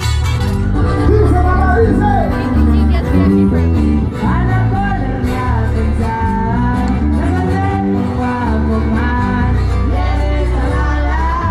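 Live concert music played loud over a PA: a singer's melody over a band with a heavy, steady bass line.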